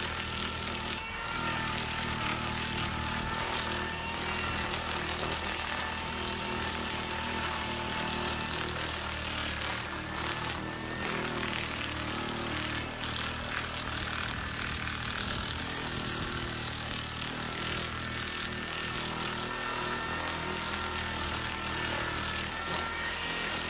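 A corded DeWalt drill driving a Sand-O-Flex flap-sanding wheel, its motor whining steadily while the spinning abrasive strips brush over torch-burnt wood to sand it for a finish. The whine's pitch shifts slightly now and then.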